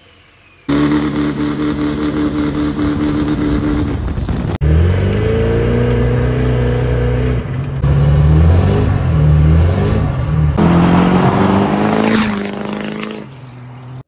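Duramax 6.6 L V8 turbo-diesel pickup engine revving hard, in several short clips joined by abrupt cuts. In one clip, about five seconds in, the pitch climbs sharply.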